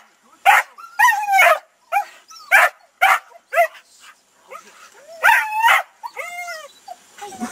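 Young Border Collie barking and yipping at sheep: a string of short, high-pitched barks and yips, with a brief pause about four seconds in.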